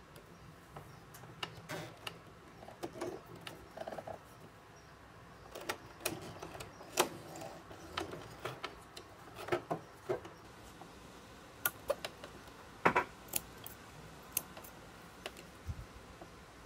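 Singer Heavy Duty 4432 sewing machine worked slowly by a hand crank, stitching through a leather strap: uneven sharp clicks and knocks from the needle and mechanism, about one a second, most of them in the middle and later part.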